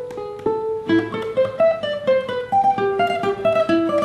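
Acoustic guitar being plucked, playing a melody of single notes one after another.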